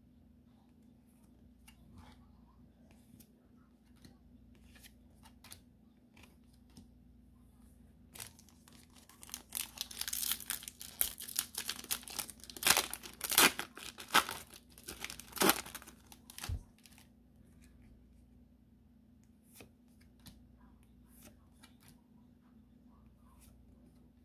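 Foil wrapper of a Pokémon 151 booster pack being torn open and crinkled by hand: a burst of loud crinkling and tearing beginning about eight seconds in and lasting some eight seconds, with faint clicks of cards being handled before and after.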